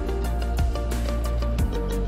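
Background music: held melodic notes over a steady bass, with a kick drum on a regular beat.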